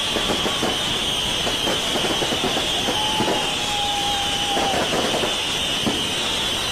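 Fireworks crackling in rapid, irregular pops, with a steady high tone held for about two seconds near the middle.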